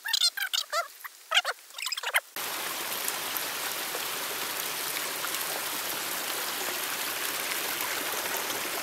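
A few short, high-pitched cries for about the first two seconds, then an abrupt switch to the steady rush of a stream's flowing water.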